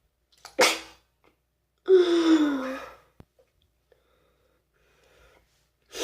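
A man's loud sneeze: a short sharp burst about half a second in, then a long voiced "choo" at about two seconds that falls in pitch. Another breathy burst starts right at the end.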